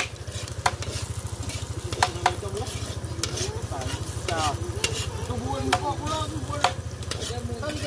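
Garlic and onion sizzling in a steel wok while a metal spatula stirs and scrapes them, with sharp irregular clinks of the spatula against the pan.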